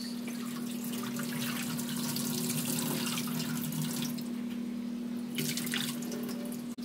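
Kitchen tap running into a stainless steel sink, water splashing over romaine salad mix in a bowl being rinsed. A steady low hum runs underneath, with a few light clicks of handling about five seconds in.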